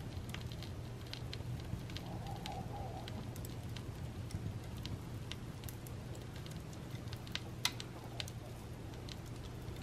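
Log fire crackling in a fireplace: faint, scattered pops and snaps, with one louder snap about three-quarters of the way through.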